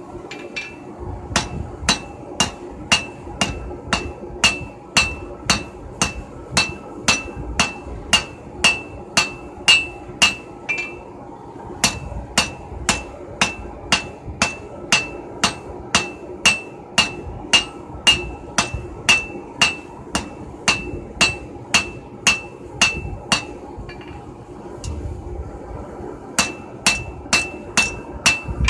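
Hand hammer striking red-hot steel on an anvil at about two and a half blows a second, each blow ringing. The blows come in three runs, with a brief pause about a third of the way in and a longer pause of about three seconds near the end.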